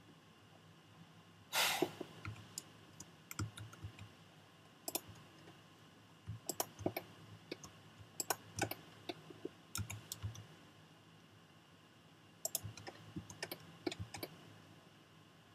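Faint, irregular clicks of a computer mouse and keyboard being worked, in uneven clusters, with one louder, brief noisy burst about a second and a half in.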